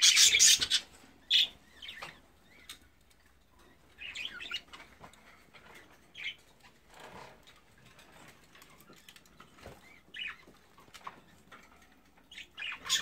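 Caged budgerigars making short, scattered chirps, with a burst of wing flapping, loudest right at the start.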